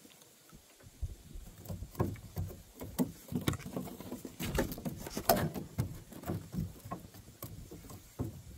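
Irregular taps, knocks and rustles close to the microphone as a fishing rod is handled in a boat, loudest about halfway through and stopping shortly before the end.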